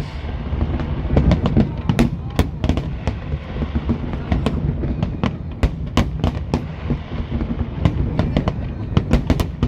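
Aerial fireworks display: a rapid, irregular run of sharp bangs and crackles, several a second, over a continuous low rumble of bursting shells.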